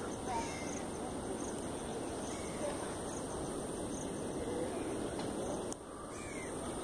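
Outdoor ambience: a steady background hiss with faint, scattered bird calls, short chirps dotted through it. The hiss drops a little near the end.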